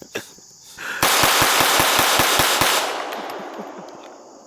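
Walther PPQ M2 .22 LR semi-automatic pistol fired rapidly: about a dozen shots in under two seconds, starting about a second in, then the report dies away in a fading echo.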